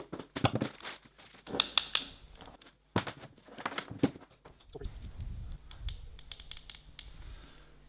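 Handling noise from a TIG welding torch and its coiled rubber hose being lifted, set down and uncoiled on a metal workbench: a run of irregular clicks, knocks and rustles, with a low rumble for about a second near five seconds in.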